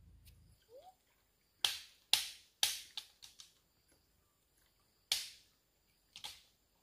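A run of about six sharp cracks or knocks in quick succession, then two more after a pause, each dying away quickly.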